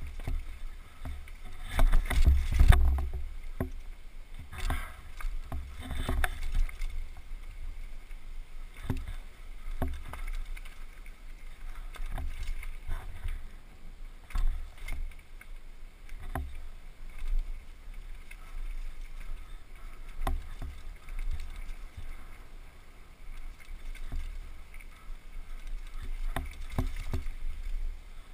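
Downhill mountain bike ridden fast over a dirt trail with roots and rocks: wind rumbling on the helmet microphone, with the bike clattering and knocking over bumps, the hardest jolts about two to three seconds in.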